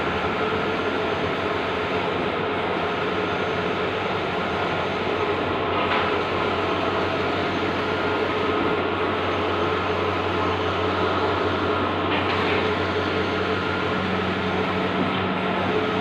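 Bluewin large-format outdoor digital printer running: a steady mechanical hum and hiss, with a faint tick about every three seconds.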